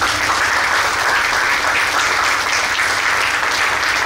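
An audience applauding: many hands clapping at once in a dense, steady patter.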